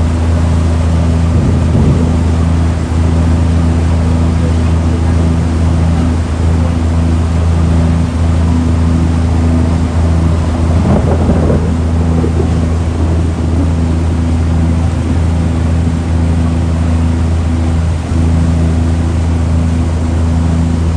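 Bumboat engine running steadily under way, a constant low drone, with the rush of water churning in the boat's wake.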